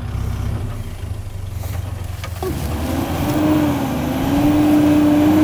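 Off-road four-wheel-drive ute engine working at low speed, a deep rumble. About two and a half seconds in it changes abruptly to a louder engine note with a steady whine that rises and falls slightly as the vehicle crawls over ruts.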